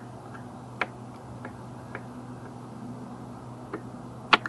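A few separate light clicks and ticks as a Torx screwdriver works a small screw out of a plastic mirror housing and the parts are handled, the loudest click near the end, over a steady low hum.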